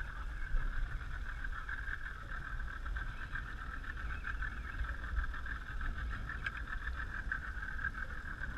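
Outboard motor running at low trolling speed, a steady hum with a low rumble underneath.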